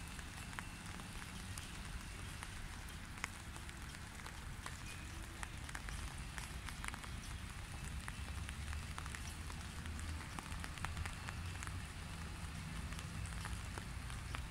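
Light rain falling on a puddle: an irregular patter of many small drop ticks over a soft steady hiss, with a low steady rumble underneath.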